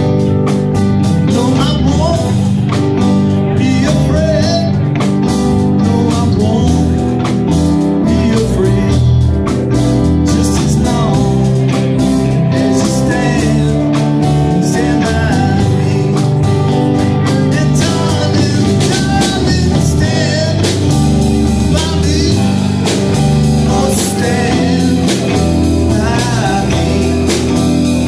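Live blues band playing loudly through amplifiers: two electric guitars, keyboard, bass guitar and drum kit.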